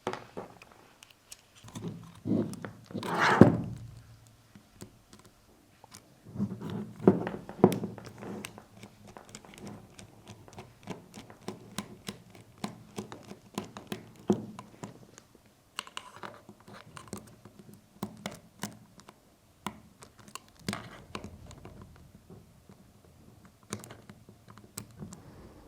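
Small Phillips screwdriver turning out the grip screws of an SSR9 airsoft rifle, with irregular small clicks, scrapes and light knocks of tool and plastic parts being handled. A few louder knocks and scrapes come in the first several seconds.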